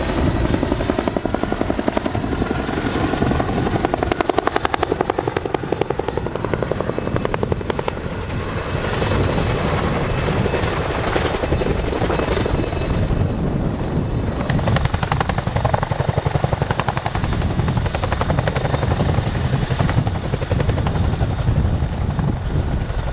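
A CH-47 Chinook tandem-rotor helicopter hovering low and setting down: the rapid, steady chop of its two rotors over the whine of its twin turboshaft engines.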